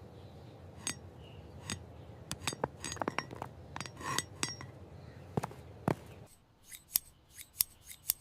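A run of sharp, irregular clicks and clinks, several a second, over a faint low background that drops away about six seconds in while the clicks go on.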